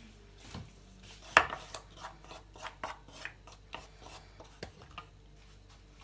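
A series of sharp clicks and taps from a kitchen utensil handled against a bowl or dish, the loudest about a second and a half in, then lighter taps two or three a second.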